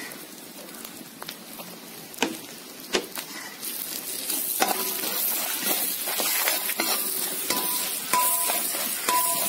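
Chopped coconut pieces sizzling in hot oil in a metal wok, stirred with a steel spoon that clicks and scrapes against the pan. The sizzle grows louder about halfway through.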